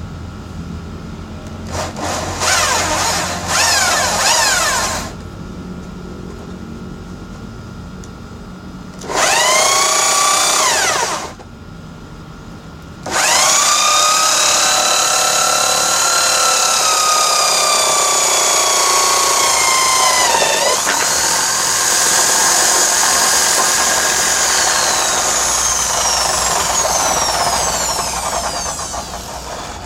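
Homemade drill-driven drum sander running, with wood fed against the sanding drum three times: briefly twice, then for a long pass from about 13 s to near the end. Under each pass a loud, high whine sets in whose pitch slowly sags as the drill is loaded, with a sharp dip about two-thirds through, and falls back to the lower running hum between passes.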